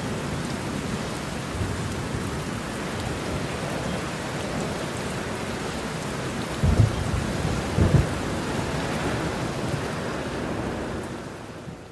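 Steady rain with two short low thunder rumbles a little past the middle, the rain fading out near the end.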